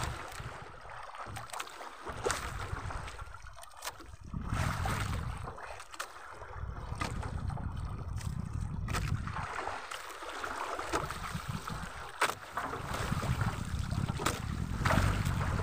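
Wind buffeting the microphone and sea water sloshing against the hull of a small outrigger fishing boat, swelling and easing every couple of seconds, with a few faint knocks.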